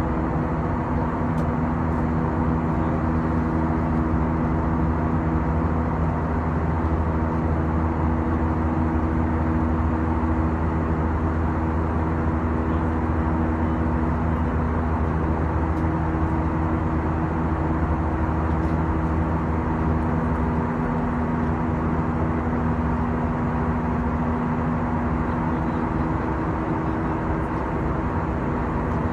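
Steady cabin noise of a twin-engine jet airliner in cruise flight: a constant rush of airflow with a low, even engine hum, heard from inside the passenger cabin.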